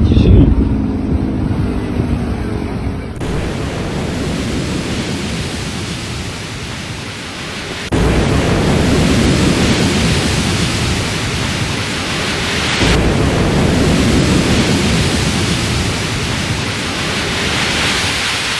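Loud storm wind, a steady rushing hiss, over several joined clips that change abruptly about 3, 8 and 13 seconds in. A siren winding down with a falling tone fades out in the first three seconds.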